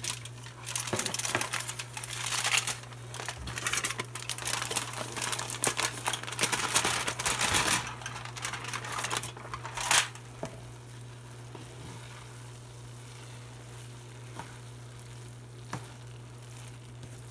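Aluminium foil crinkling and rustling as it is lifted off a baking sheet and folded to tip chopped cooked chicken into a pan. There is a sharp crackle about ten seconds in, after which it goes much quieter, with only a few faint ticks.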